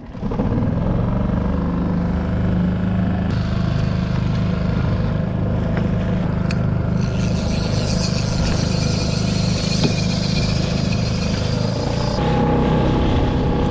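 Small outboard motor on a solo skiff running steadily at trolling speed, with water hissing along the hull. The higher hiss shifts abruptly about three seconds in, again about halfway through, and near the end.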